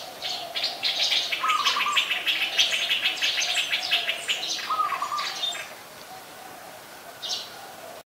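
Streak-eared bulbul calling: a fast run of high chirping notes for about five seconds, with two short lower notes in between. The notes stop about 5.5 s in, and one more chirp comes near the end.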